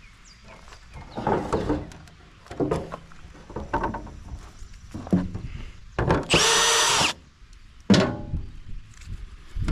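Power drill spinning up for about a second, about six seconds in, among several knocks and clanks of tools and metal being handled.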